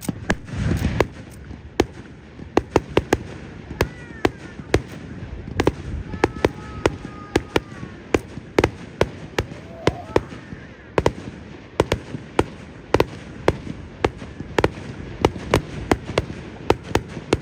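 Fireworks display: a rapid, irregular string of sharp bangs and cracks from shells bursting, several a second, with a deeper, fuller boom about a second in.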